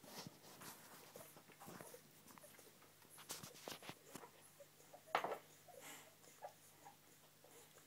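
Newborn Springer Spaniel puppies nursing from their mother: faint snuffling and suckling with small short squeaks, and one brief louder sound about five seconds in.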